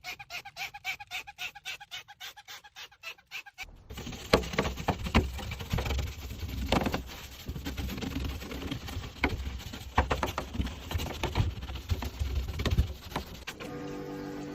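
Rapid rhythmic squeaking, about five strokes a second, from scrubbing or rubbing a surface while cleaning the car. About three and a half seconds in it gives way to louder rough scrubbing noise with scattered knocks.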